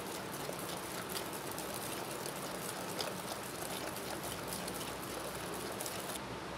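Wire balloon whisk beating creamed butter and powdered sugar by hand in a glass bowl: a steady swishing with quick light clicks of the wires against the glass. The clicking stops just before the end.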